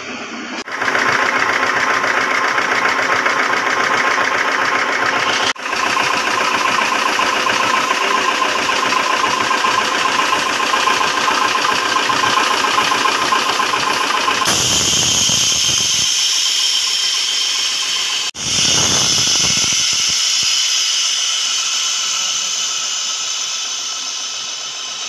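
Plastic extrusion blow-moulding machinery running: a loud, steady mechanical drone and hum with several steady tones. The sound changes abruptly three or four times.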